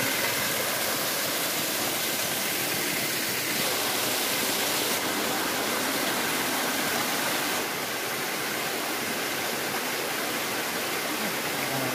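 Waterfall cascading over rock ledges into rocky pools: a steady rushing of falling water, a little softer in the last few seconds.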